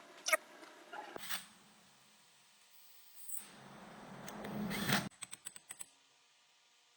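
Workshop handling noises during differential reassembly: two sharp clicks, then a rustling, hiss-like noise that swells for about a second and a half and stops abruptly, followed by a quick run of small clicks.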